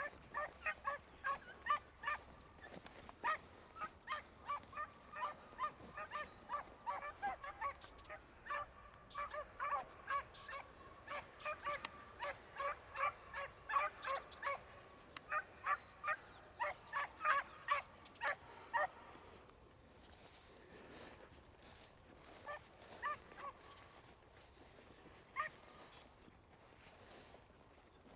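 A pack of beagles baying on a rabbit's trail, many short overlapping bays in quick succession, thinning to a few scattered bays after about two-thirds of the way through.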